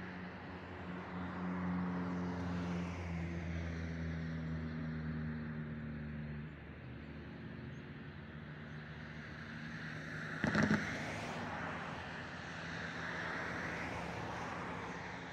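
Motor vehicle noise: a steady low engine hum with traffic noise swelling and fading twice, and one sharp knock about ten and a half seconds in.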